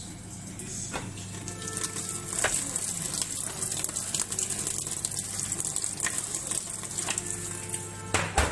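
Panasonic NA-F90A4 top-loading washing machine filling its tub, water hissing and splashing in steadily under a low hum that starts about a second in. A louder knock comes near the end.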